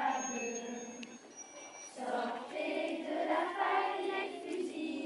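A group of children singing together as a choir, with a short break between phrases about a second in before the singing resumes.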